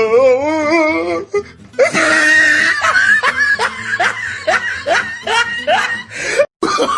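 Comic background music with a voice laughing in a rhythmic string of 'ha-ha' bursts, about three a second, after a wavering drawn-out opening note.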